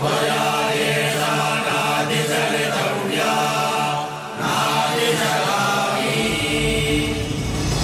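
Mantra chanting set to music, with steady held pitched tones. A deep bass comes in about six seconds in.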